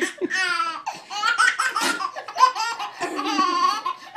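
A baby laughing hard in repeated belly laughs, with two longer drawn-out laughs about half a second in and about three seconds in.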